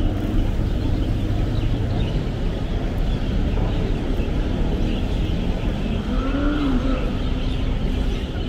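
Busy city street ambience: a steady rumble of road traffic, with faint passing voices.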